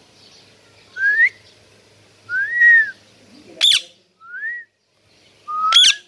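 Indian ringneck parakeet calling: four short whistled notes, mostly rising glides with one arched up and down, and two sharp screeches, one in the middle and one capping the last whistle near the end.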